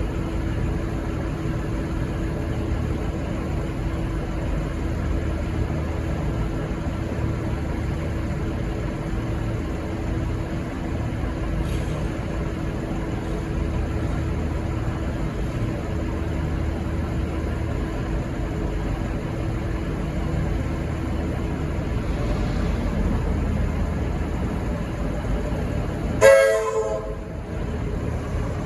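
Diesel locomotive P17 running steadily with a low rumble and a steady hum. Near the end comes one short toot of its RVB three-chime horn, the loudest sound here.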